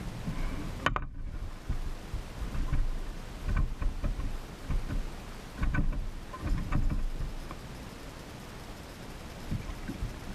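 Wind rumbling on the microphone out on a kayak, with water noise and a few short clicks and knocks against the boat.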